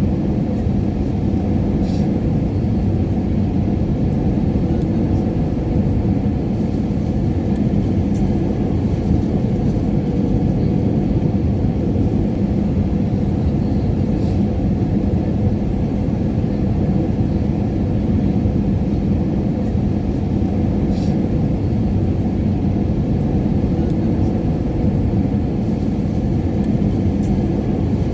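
Airliner cabin noise in flight: a steady, deep rumble of engines and airflow with a constant low hum. Two faint ticks come through, about 2 seconds and 21 seconds in.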